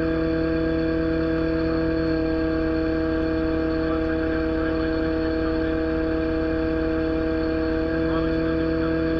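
Excavator's diesel engine running steadily at rest, heard close up, with a constant whine over the engine hum and no change in speed.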